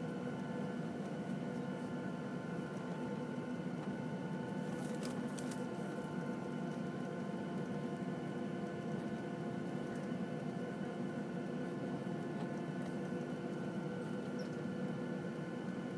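Cabin noise of a Boeing 737-700 taxiing, its CFM56-7B engines near idle: a steady hum with several steady whining tones over it. A few faint clicks about five seconds in.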